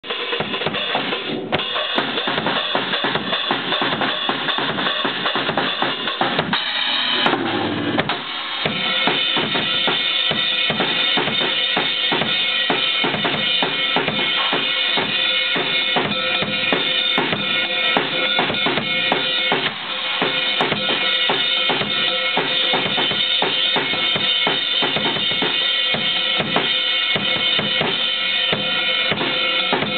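Acoustic drum kit played continuously: a dense beat of bass drum, snare and tom hits under ringing cymbals, with a brief break in the pattern about seven seconds in.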